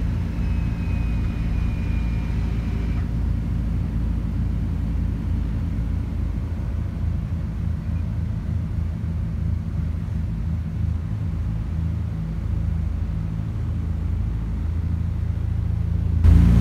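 Propeller light aircraft's engines and propellers droning steadily, heard inside the cabin on the approach to land. Near the end the drone suddenly gets louder.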